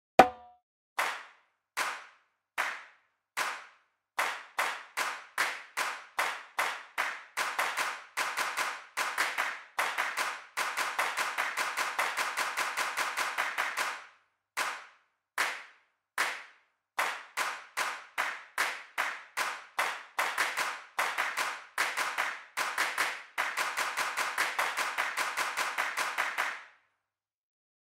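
A person clapping hands in a steady pulse, one clap per syllable of the words 'Tea' and 'Co-ca Co-la': single claps about 0.8 s apart, then two per beat, then a fast run of four per beat. The pattern runs through twice, and the clapping stops shortly before the end.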